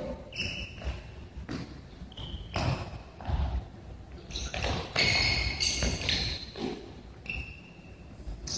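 A futsal ball being kicked and bouncing on a wooden gym floor, with scattered thuds and the short, high squeaks of players' indoor shoes on the court, echoing in a large sports hall.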